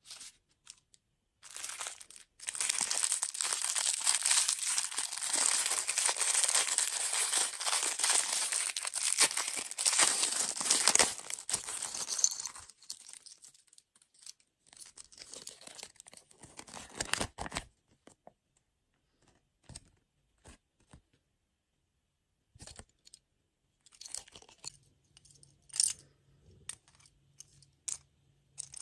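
Plastic food packaging being torn open and crinkled: about ten seconds of steady tearing and crinkling, then scattered crinkles and small clicks.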